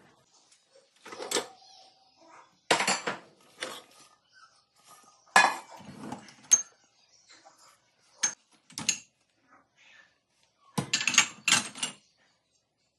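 Dishes and cutlery clinking and clattering in short, separate bursts as they are handled, with a loud run of clatters near the end.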